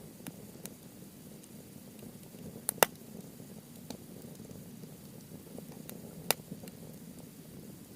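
Wood fire of softwood and hardwood logs burning in a fire pit: a steady crackle with scattered sharp pops, the loudest a quick double pop about three seconds in and another just after six seconds.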